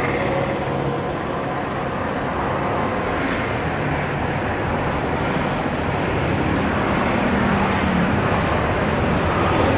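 Boeing 737-800's CFM56 jet engines running as the airliner rolls out on the runway after landing: a steady jet rush that grows slightly louder toward the end as the aircraft comes closer.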